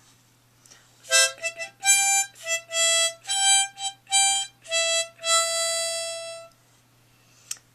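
A small harmonica played as a quick run of about a dozen short notes, ending on one long held note of about a second that fades away.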